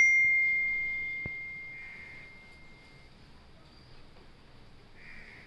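A single clear, high bell-like ding that rings out and fades away over about three seconds. A soft click comes about a second in.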